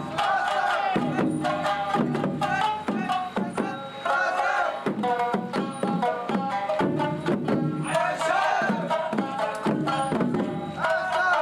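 Japanese festival dance music: regular drumbeats under a wavering, bending melody line.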